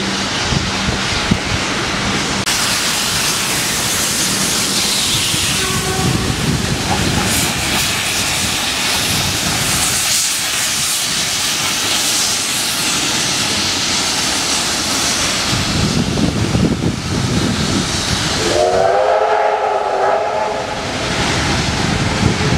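Victorian Railways K class steam locomotives working, with a steady hiss and rush of steam and running noise. Near the end a multi-tone steam whistle blows for about two seconds.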